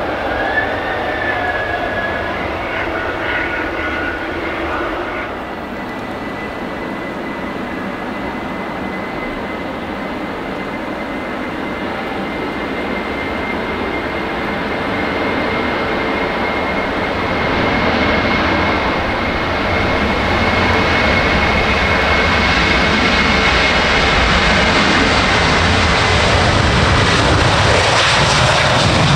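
A landing jet's engines winding down for the first few seconds, then a Ryanair Boeing 737-800's CFM56 jet engines at taxi power: a steady high whine over a dense engine rumble, growing louder as the airliner taxis closer.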